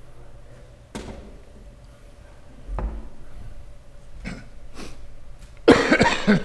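Room noise in a quiet hall: a few scattered knocks and shuffles, then a loud, brief burst of clattering noise near the end.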